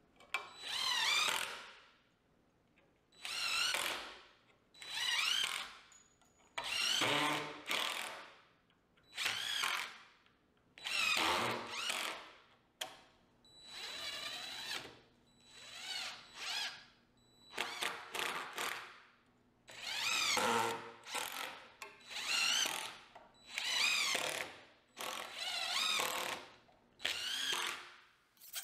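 Power drill driving screws in about fifteen short runs, roughly one every two seconds, each a whine that winds up and falls away. These are most likely the screws fastening metal tie plates across the joints of the wooden rack's boards.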